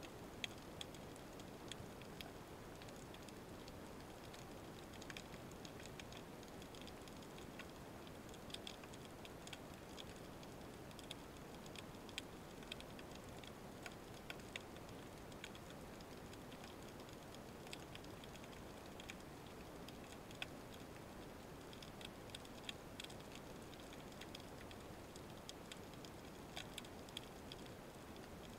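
Faint underwater ambience picked up by a camera in its housing: a steady low hiss with scattered sharp ticks and crackles at irregular intervals.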